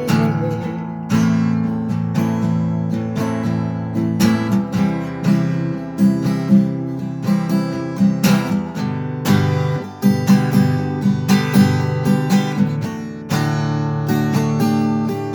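Acoustic guitar in drop tuning strummed through an instrumental break, cycling the chords Am, C, G and D in a steady rhythm.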